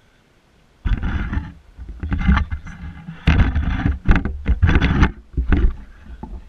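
Handling noise right on the camera microphone: irregular rumbling bumps and rubbing as the camera is touched and jostled, starting about a second in and stopping shortly before the end.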